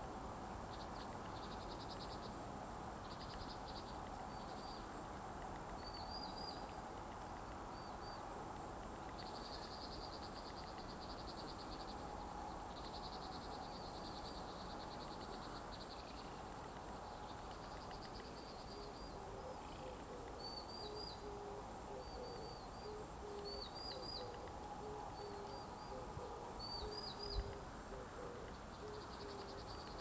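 Birds calling: repeated high, buzzy trills about a second long alternate with short chirps over a steady background hum. A single sharp knock comes a few seconds before the end.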